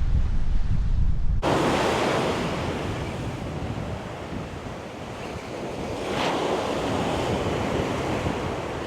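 Wind buffeting the microphone with a low rumble. After about a second and a half it gives way to the steady hiss of surf breaking and washing up the beach, ebbing and swelling.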